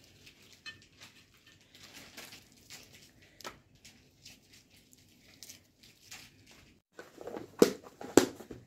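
Soft crackling and rustling of cooked sugar rotis being torn apart by hand and dropped into plastic lunch boxes, then several sharp plastic clacks near the end as a lunch-box lid is handled.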